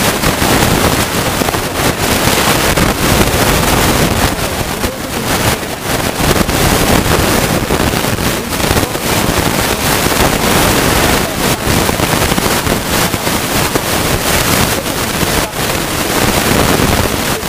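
Wind buffeting the microphone: a loud, steady rushing noise that dips briefly now and then.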